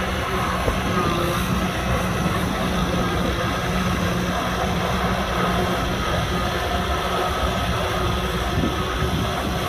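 Kubota M6040SU tractor's four-cylinder diesel engine running steadily under load while plowing mud, a continuous heavy rumble with a steady low hum.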